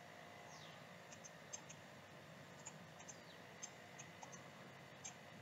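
Faint computer mouse clicks, about ten scattered irregularly, over low steady room tone.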